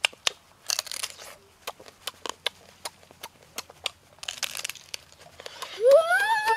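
Close-up eating of a whole cooked crab: a run of sharp wet clicks and crunches as shell and meat are bitten and sucked, with two short noisy slurps. Near the end comes a loud, high-pitched vocal exclamation that rises and then falls in pitch.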